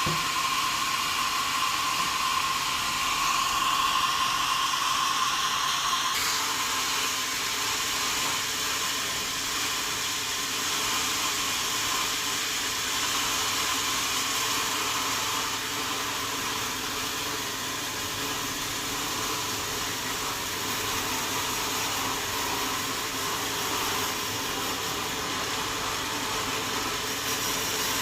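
Sawmill saw and its machinery running steadily, a dense noise with a high whine that stops about six seconds in, after which a lower hum carries on.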